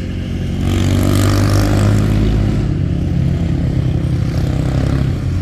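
A motor vehicle's engine running steadily, with a swell of louder engine and road noise in the first few seconds, as a vehicle passes.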